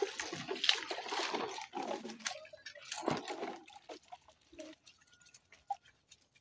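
Water sloshing and splashing in a plastic bucket as cups are washed by hand, fuller in the first couple of seconds, then fainter with light plastic clicks.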